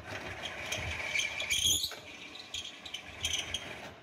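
Thread tap turning in a drill press, cutting threads into steel with a continuous metallic scraping and grating, and a high squeal about halfway through.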